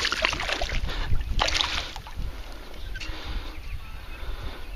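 Water splashing in two short bursts in the first two seconds as a hooked northern pike thrashes in shallow, weedy water near shore, with wind rumbling on the microphone.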